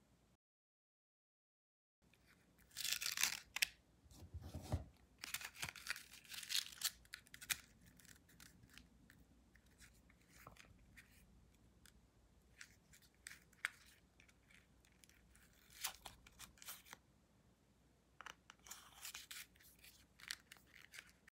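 Plastic cards being pushed out and slid against the stainless-steel plates of a Ridge wallet, in irregular scraping and sliding bursts with small clicks from fingers on the metal. It starts after about two seconds of silence, with the busiest scraping in the first few seconds after that.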